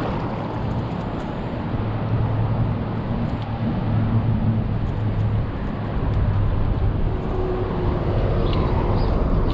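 Steady rushing of a shallow freestone river's current, with a low rumble underneath.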